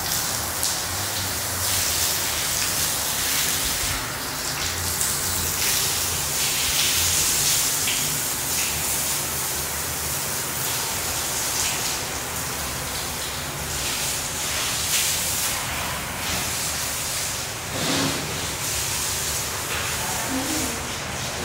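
Water from a garden hose spraying and splashing onto a tiled floor, a steady hiss.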